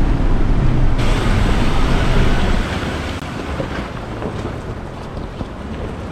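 Rushing creek water and wind on the microphone, with a Ford Ranger 4WD's engine rumbling low as it drives through and out of a deep creek crossing. The engine rumble drops away about two and a half seconds in, leaving the water and wind.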